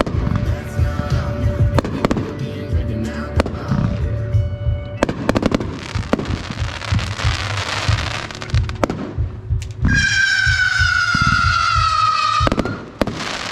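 Fireworks finale going off in rapid succession: a dense run of bangs and thumps from shells launching and bursting, with a stretch of crackling in the middle and a long whistling tone that drops slightly in pitch near the end, over background music.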